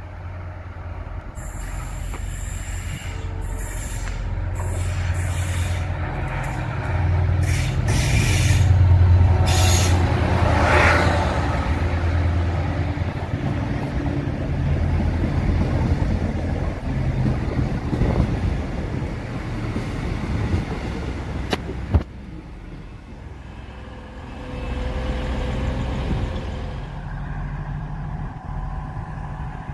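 TransPennine Express passenger train running into the station and passing close by, its low engine and wheel rumble building to a peak about nine seconds in. Sharp high hisses and squeals from the brakes and wheels come through the first ten seconds, and a single sharp clunk sounds about 22 seconds in before the sound drops away.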